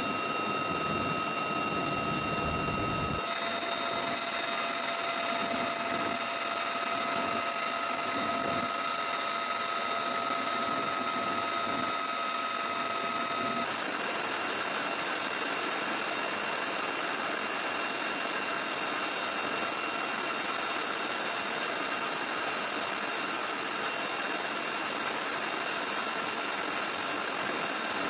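Helicopter turbine engine and rotor running steadily, with a high, steady whine over a rushing noise. The whine changes abruptly about three seconds in and again about fourteen seconds in.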